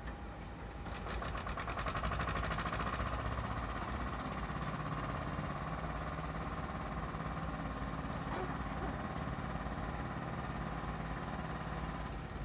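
An engine comes up about a second in and then runs steadily at idle with a fast, even knocking pulse.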